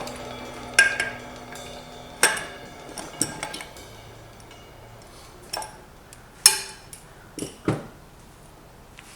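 Metal engine parts and tools clinking and knocking together on a workbench during disassembly: about seven separate sharp clinks with short ringing, the loudest a little past six seconds in.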